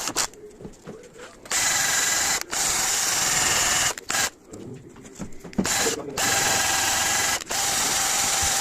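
A power tool running in four bursts of one to two seconds each, starting and stopping abruptly, during work on a starter motor.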